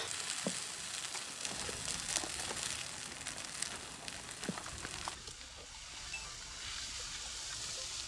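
Wildfire burning through brush and trees, crackling with scattered sharp pops over a steady hiss.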